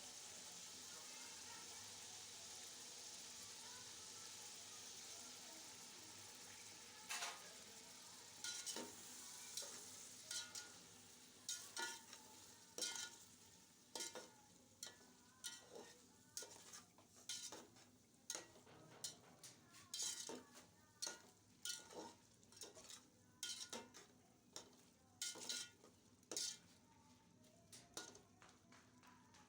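Food sizzling in a cooking pot, then, from about seven seconds in, a ladle stirring with sharp knocks and scrapes against the pot about once a second, over a fainter sizzle.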